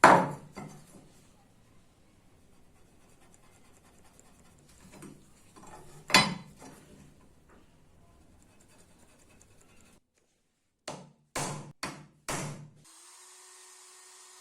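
Hand work on metal parts during a restoration: a sharp knock, a few quieter rubbing sounds and a second sharp knock. After a cut come four short scraping strokes, then a small electric tool starts running with a steady hum.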